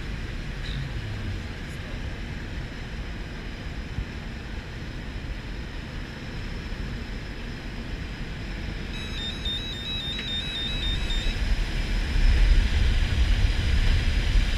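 Steady drone of a skydiving jump plane heard inside its cabin, growing louder with a rush of low wind noise over the last few seconds as the jump door is open. About nine seconds in, a short warbling electronic beep pattern sounds for a couple of seconds.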